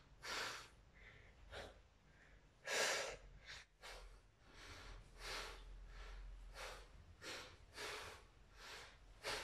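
A man's heavy breathing under exertion during an abdominal leg-raise exercise: short, forceful breaths in and out, a little faster than one a second, the strongest about three seconds in.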